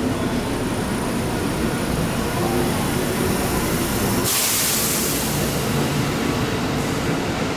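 Train noise at a station platform: a steady low rumble, with a loud hiss that starts suddenly about four seconds in and lasts two to three seconds.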